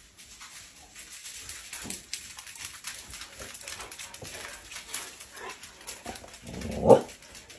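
Several huskies walking across a laminate floor with their claws clicking. Near the end one dog gives a short whining call, the loudest sound here.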